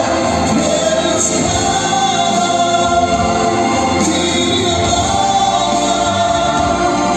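Music: a vocal group singing long-held chords in close harmony.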